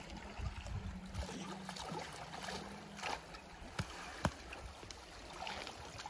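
Shallow river water flowing and splashing as a bamboo push net is worked through it, with a few sharp clicks around the middle.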